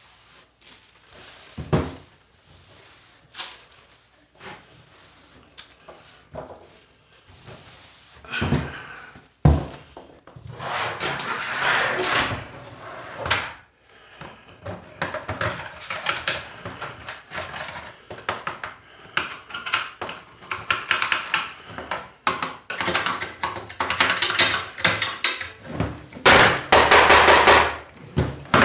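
Knocks and clatter of a plastic electronic keyboard's case and parts being handled during disassembly, with a few separate knocks at first and then a busier stretch of rubbing, rattling and clicking from about ten seconds in.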